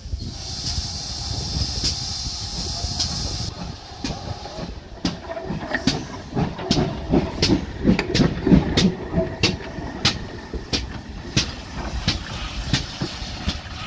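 Steam tank locomotive moving slowly past at close range: a hiss of steam for the first few seconds, then a steady run of clanks and beats about twice a second from its wheels and motion, loudest as it draws level, about eight seconds in.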